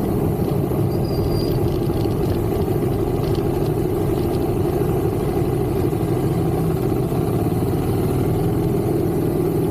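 A vehicle engine running steadily with an even, low rumble, with a brief thin high tone about a second in.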